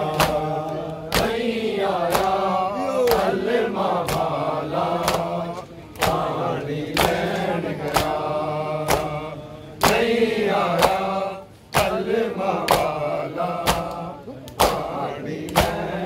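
Mourners' matam: many open hands slapping bare chests in unison, a sharp beat about once a second, under men chanting a noha.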